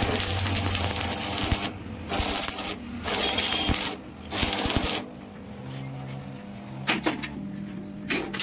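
Stick (shielded metal arc) welding on a steel square-tube gate frame: the electrode's arc crackles and sizzles in four short runs with brief breaks between them, and stops about five seconds in.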